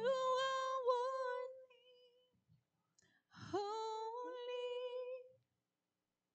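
A woman singing two long held notes without accompaniment, the second sliding up into its pitch about three seconds in, with a pause between them.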